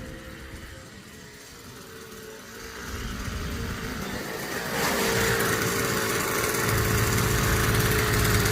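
Small 70cc two-stroke motorized-bicycle kit engine running, getting louder about three seconds in and again about halfway through, then holding steady.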